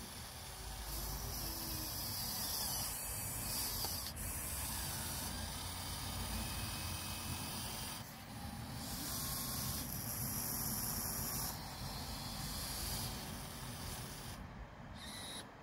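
Huina 1580 RC excavator's small electric gear motors whirring in several bursts of a few seconds each as the boom and bucket move, with a rasping scrape of the bucket working through gravel.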